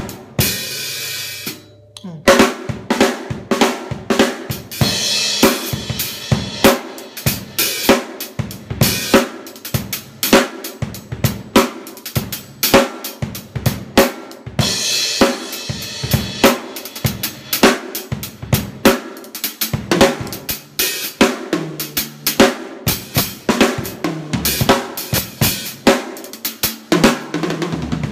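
Small portable drum kit played as a continuous groove and fills: snare hits with bass drum and hi-hat and cymbal strikes. A brief break about two seconds in, then steady playing to the end.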